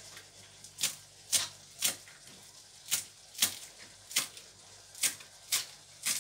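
Kitchen knife chopping fresh parsley on a plastic cutting board: sharp knocks of the blade on the board, about two a second, with a short pause around two seconds in.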